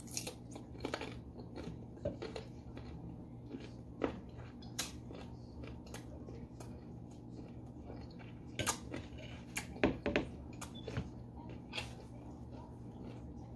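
Crisp, crunchy chewing and biting of raw green mango slices: irregular crackling crunches, with a denser, louder run of them about nine to ten seconds in.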